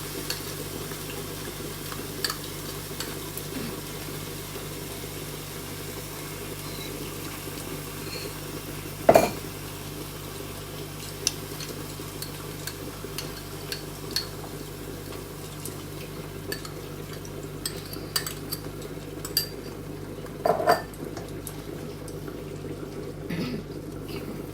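Spoon clinking and scraping against a cooking pot as a curd and spice paste is stirred into curry masala, over a steady background hiss. Two louder knocks stand out, about nine seconds in and about twenty seconds in.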